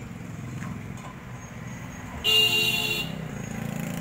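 A vehicle horn sounds once, a single blast of under a second about two seconds in, over a steady low rumble.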